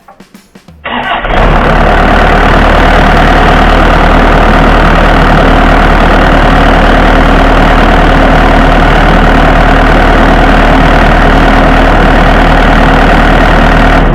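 Bobcat 337 compact excavator's diesel engine starting about a second in and running steadily, loud and close, then shut off at the end. It is a short run after an oil change to fill the new oil filter.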